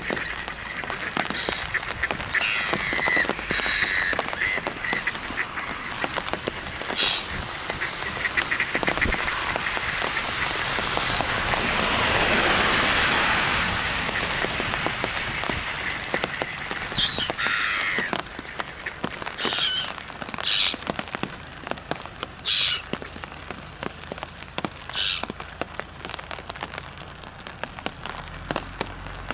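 A flock of mallards quacking and calling at intervals, over a steady crackling patter.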